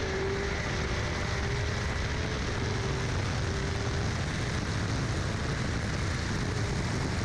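Steady rush of wind over a camera mounted on the outside of a moving car, with the Camaro's engine running faintly underneath.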